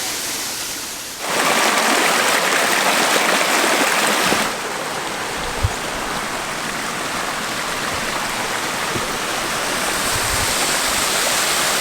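Mountain waterfall and stream rushing steadily. It gets louder from about a second in to about four and a half seconds, then swells again slowly toward the end. There is a brief low thump about five and a half seconds in.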